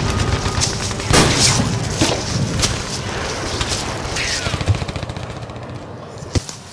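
Battlefield-style war sound effects: dense gunfire with booms over a low rumble, several sharp strikes, dying away gradually with one sharp crack near the end.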